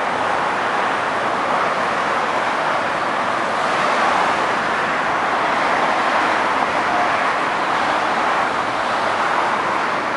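Steady hiss of road traffic, an even wash of tyre and engine noise with no single vehicle standing out.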